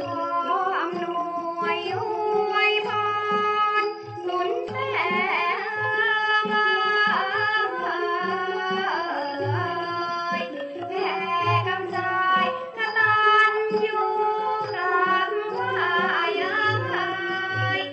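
Traditional Thai ensemble music: a melody with sliding, bending notes over a repeating low drum pattern.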